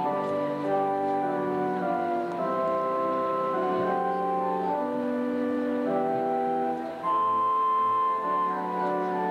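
Organ playing slow, sustained chords, each held for a second or more before moving to the next, with a louder chord coming in about seven seconds in.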